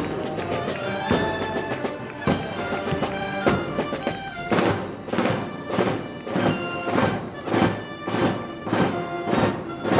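Live Moros y Cristianos festival band music: reedy wind instruments hold a melody over a drum beat. About four seconds in, the beat turns steady and quicker, roughly two strokes a second.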